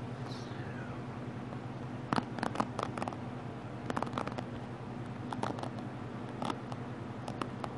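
Light taps and scratchy clicks from fingers working at the camera lens, close to the microphone, coming in short clusters every second or so over a steady low hum.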